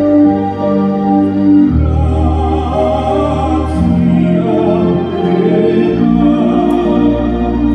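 Male tenor singing in operatic style through a PA system, holding long notes over instrumental accompaniment.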